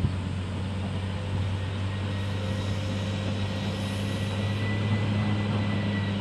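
Dump truck's diesel engine running hard as it climbs a steep, slippery dirt grade, a steady drone that grows a little louder about five seconds in.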